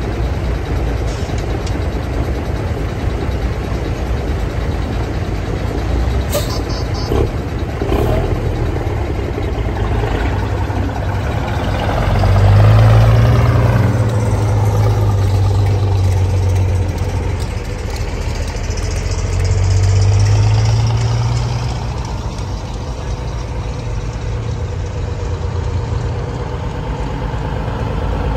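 Antique Brockway heavy trucks driving past one after another, their engines running under load. A deep engine note swells twice as trucks come close and go by, with a steady background of more trucks idling and pulling in the line.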